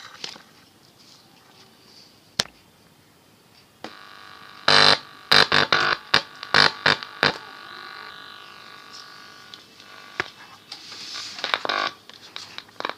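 Small loudspeaker driven by a homemade TDA2030 amplifier: a couple of clicks, then a steady buzzing hum that comes in about four seconds in. A run of loud pops and crackles sounds over the next few seconds, and more crackling comes near the end.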